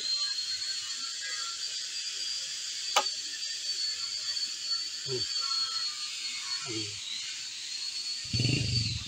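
A single sharp click about three seconds in, as a magnetic torpedo level is set down on a steel square tube. A steady high-pitched background hum runs throughout.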